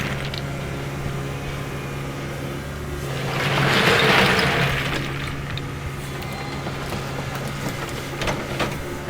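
Diesel engine of a track hoe (tracked excavator) running steadily while it smooths crushed rock, growing louder for a second or two around the middle.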